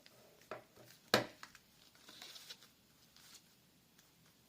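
Handling noise from a replacement earpad being worked onto a headphone earcup: a sharp tap about a second in, a softer click before it, and brief rustling of the pad material.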